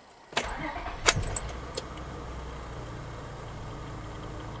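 2000 Acura 3.2 TL's V6 engine starting about half a second in, catching quickly and settling into a steady idle. With new camshaft and crankshaft position sensors fitted, it starts smoothly: the ignition timing sounds good.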